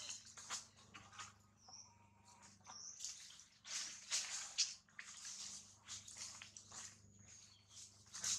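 Dry leaf litter rustling and crackling in irregular bursts as macaques forage in it and walk across it, loudest about three to four and a half seconds in.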